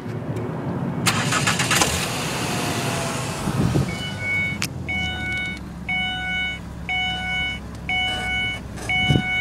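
A 2005 Ford Escape's 2.3-litre four-cylinder engine is started about four seconds in and settles into a steady idle. Once it is running, a dashboard warning chime sounds about once a second.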